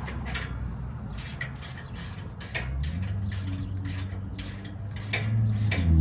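Scattered metallic clicks and clinks of hand tools and hardware being worked during a truck bumper install. A low steady hum comes in about three seconds in and gets louder near the end.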